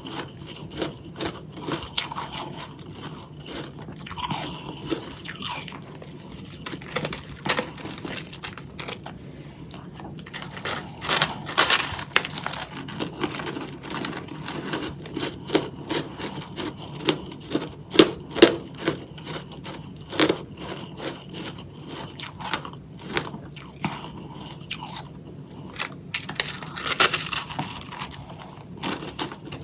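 Close-miked biting and chewing of soft, powdery freezer frost, with irregular crunches and crackles throughout and louder bursts of crunching at a few points.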